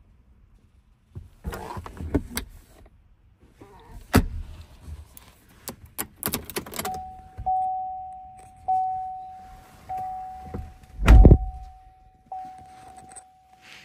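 Keys jangling and clicking as the key is handled and slid into the 2017 Chevrolet Colorado's ignition lock. Then the dashboard warning chime starts, dinging a little more than once a second. A heavy thump, the loudest sound, comes about three-quarters of the way through.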